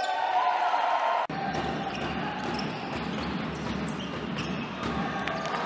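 Basketball game sound: a ball bouncing on a hardwood court amid players' shouts. The sound cuts off abruptly about a second in and gives way to steadier court noise.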